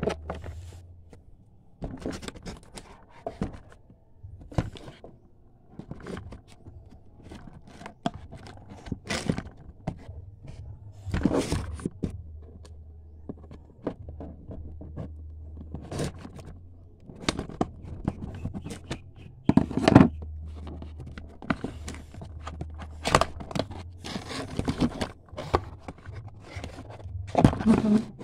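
Scissors cutting and hands scraping, knocking and tearing at a cardboard toy box, in irregular clicks and short scrapes.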